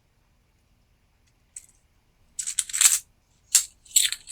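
A set of torch tip cleaners being handled: the thin metal wires clinking and rattling against their case in short clusters of clicks, starting about one and a half seconds in and coming again several times toward the end.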